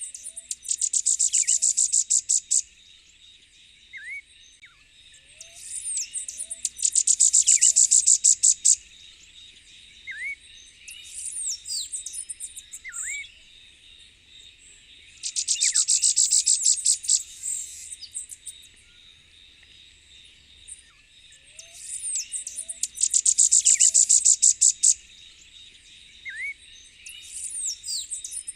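Elfin-woods warbler singing: four songs, each a rapid, high-pitched run of short notes on one pitch that swells in loudness for about two to three seconds. A steady high insect drone and scattered short upslurred chirps run underneath.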